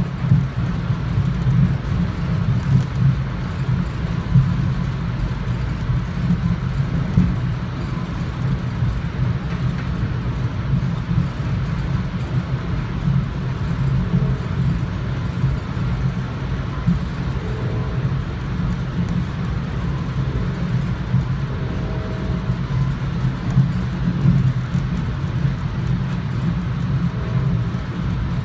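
Steady rumble of a commuter rail coach running at speed, heard from inside the car: wheels on rail and car-body noise, even and unbroken.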